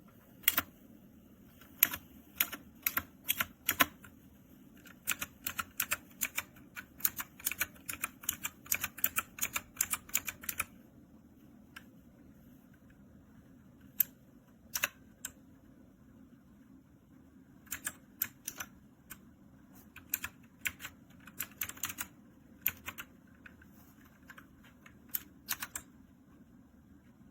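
Typing on a DIERYA T68SE 60% mechanical keyboard with linear red switches. There is a dense run of keystrokes for about ten seconds, then a pause broken by a few single presses, then more typing in short bursts.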